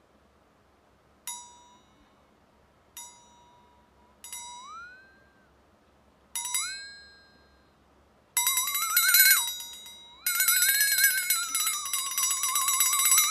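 Electronic tones: four short pinging beeps, the later two sliding up in pitch. About eight seconds in, a loud buzzy electronic tone starts, wavering up and down in pitch and breaking off briefly about ten seconds in.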